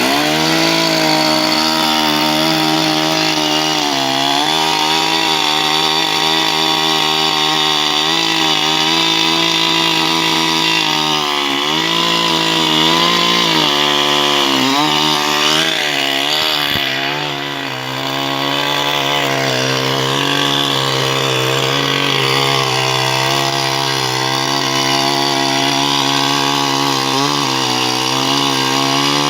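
Gas chainsaw running at high revs through wood. Its engine note sags several times as the chain takes load, most deeply a little past the middle, then recovers.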